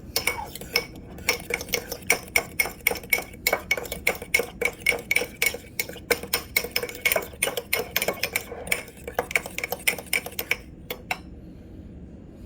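A spoon stirring a thick mayonnaise-and-ketchup sauce in a bowl, clicking against the bowl several times a second, stopping near the end.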